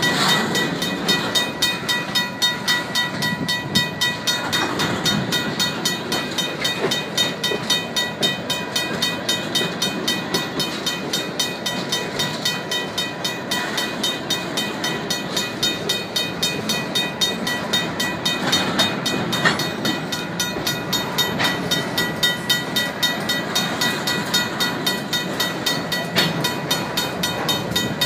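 Freight cars of a manifest train, covered hoppers and tank cars, rolling past close by, their wheels running steadily on the rails with a few brief knocks. Over it a RACO mechanical crossing bell rings with rapid, even strokes.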